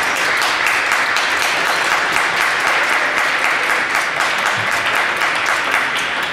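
Applause: a group of people clapping their hands continuously, dense and loud.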